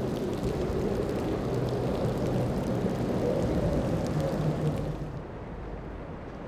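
Quint Mercury 450R supercharged V8 outboards on an MTI boat running at speed as it passes, a steady engine drone over hull spray. About five seconds in this gives way to a quieter, duller outboard sound from a Contender with triple Yamaha 250s.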